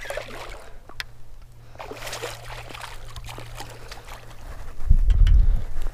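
Pike splashing at the surface beside the boat as it is reeled in on a baitcasting reel, in two splashy bursts, over a steady low hum. Near the end a loud low rumble for about a second.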